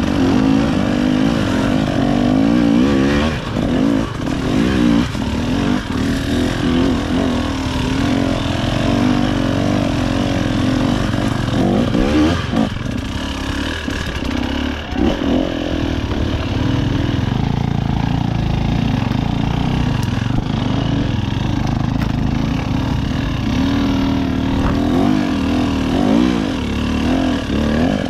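KTM EXC 300 TBI single-cylinder two-stroke dirt bike engine under riding, its revs rising and falling constantly, with a few knocks from the bike over rough ground.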